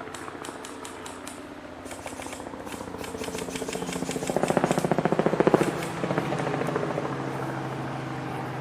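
A motor vehicle engine running with a steady hum. It swells into a loud, rapid, even pulsing about four seconds in, then eases back to a steadier run. Sharp rapid clicks sound over it in the first half.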